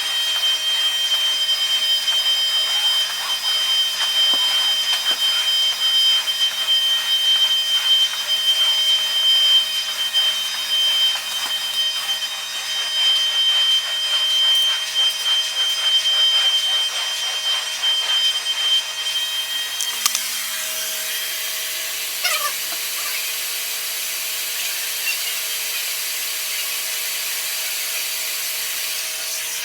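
Carpet-cleaning extraction equipment running: the vacuum pulling through the wand and hose with a steady high whine over a rushing hiss. About twenty seconds in the sound shifts to a smoother, steadier hiss with a different whine.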